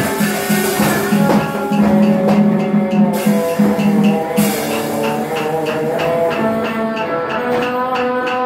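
Instrumental music from a tuồng (Vietnamese classical opera) ensemble: plucked strings playing over drum beats, with a steady run of light ticks.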